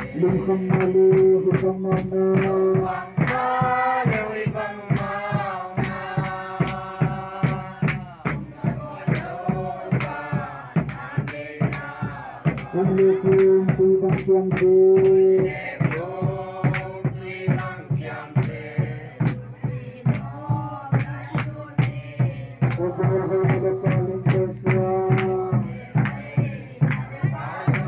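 Group singing of a hymn or chant, led by a man's voice on a microphone. A large wooden barrel drum is beaten in a steady, even beat of about two to three strokes a second.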